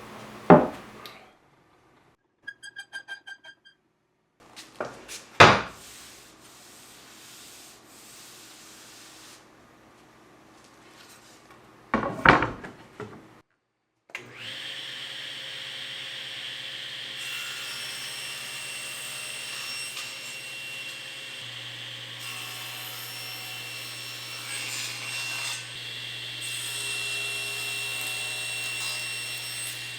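Workshop sounds: three loud knocks spread over the first half, a short run of quick beeps, then a power tool starts about halfway through and runs steadily with a hum and a high whine, cutting or working wood.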